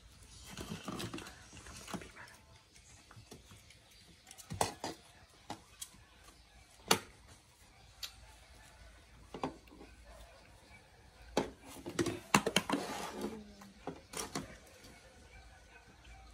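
Rustling and crinkling of a disposable diaper being fastened, with scattered sharp clicks and taps from handling on a plastic table.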